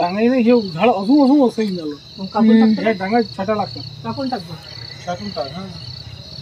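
Crickets chirping in a steady, regularly pulsing high trill, under louder voices talking.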